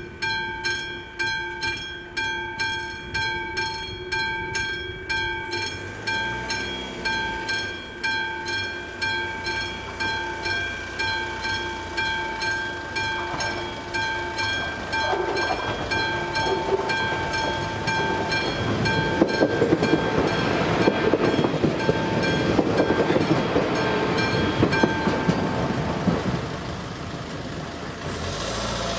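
Classic mechanical bell of an AŽD 71 level-crossing signal ringing steadily in quick strikes, warning of an approaching train. About halfway in a passenger train rumbles and clatters over the crossing, loudest in the last third, and the bell stops a few seconds before the end.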